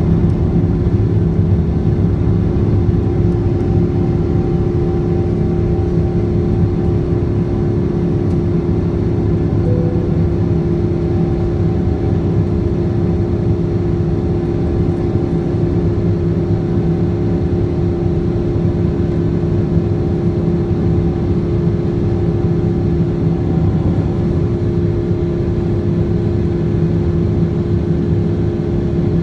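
Boeing 777-200ER's General Electric GE90 turbofan engines running at climb thrust just after takeoff, heard inside the cabin beside the wing: a steady, even engine noise with a held mid-pitched tone running through it.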